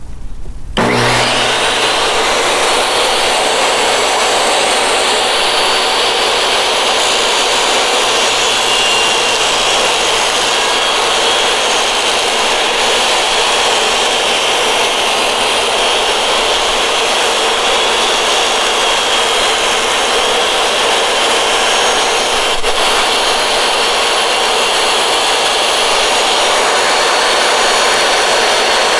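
DeWalt DW745 table saw's motor switched on about a second in, spinning a Diablo 50-tooth combination blade up to speed and running steadily with a high whine.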